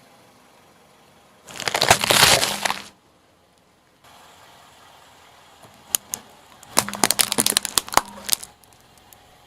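A car tyre rolling over and crushing crunchy objects. About a second and a half in there is a dense crunch lasting over a second, then from about six seconds a run of sharp cracks and snaps that stops near the end.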